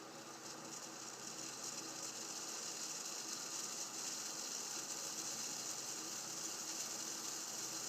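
A pot heating on the stove: a fine crackling hiss, mostly high-pitched, that grows steadily louder as the liquid comes toward the boil.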